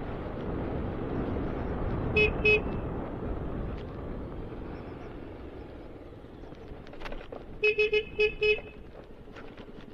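Motorcycle horn beeping: two short beeps about two seconds in, then a quick run of about five beeps near the end. Under them is a low rumble of engine and wind that fades out midway.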